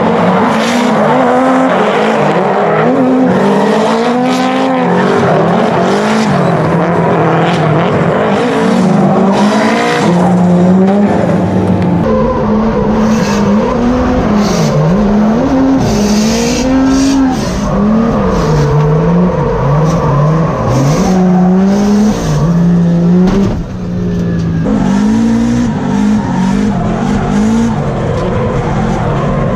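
Two drift cars, a Nissan S13 and a BMW E36, sliding in tandem: engines revving up and down through the drift with tyre squeal. From about twelve seconds in, the sound is heard from inside a car's cabin, the engine note deeper and closer.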